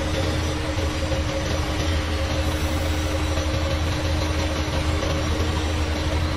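A vacuum-flask evacuation machine running on test, its vacuum pumps making a steady low hum with noise over it. A steady higher tone runs alongside and stops near the end.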